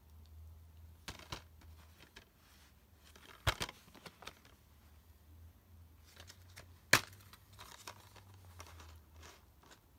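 Plastic DVD case handled and turned over, with scattered rustles and a sharp click about three and a half seconds in. About seven seconds in comes a louder snap as the case's clasp is pulled open.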